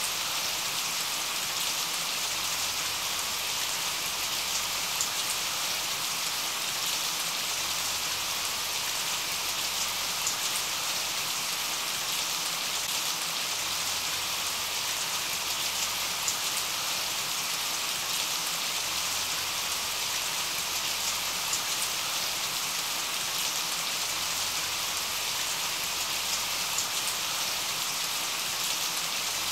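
Steady rain sound, an even hiss with faint scattered drop ticks and no change throughout; a rain recording laid over a subliminal track as its masking background.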